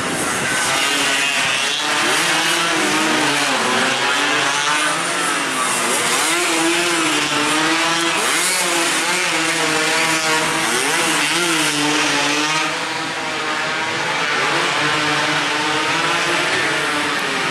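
Several two-stroke 116–125 cc underbone racing motorcycles at full throttle, several engine notes overlapping, each rising and dropping again and again through gear changes as the bikes pass.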